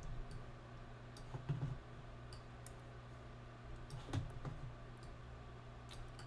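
Computer mouse clicking now and then: faint single clicks, spaced irregularly about a second apart, over a low steady hum.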